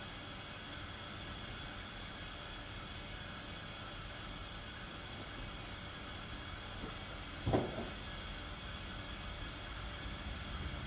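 Steady background hiss, with a single short knock about seven and a half seconds in.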